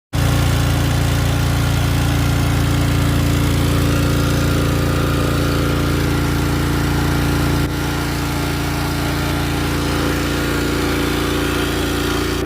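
Honda GX270 single-cylinder four-stroke engine on a pressure washer running steadily after its carburetor has been cleaned, with a slight drop in level about two-thirds of the way through.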